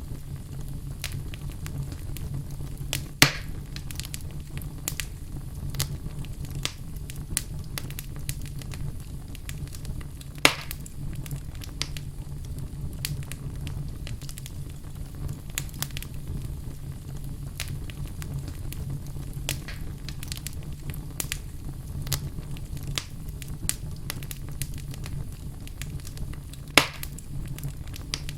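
Wood fire burning in a fireplace: a steady low rumble of flames with scattered crackles and three louder sharp pops, about 3, 10 and 27 seconds in.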